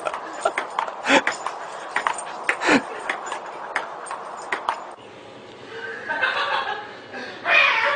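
Table-tennis ball clicking on the table in a quick, uneven rally, with a couple of short falling yelps. About five seconds in it stops, and a breathy human voice follows near the end.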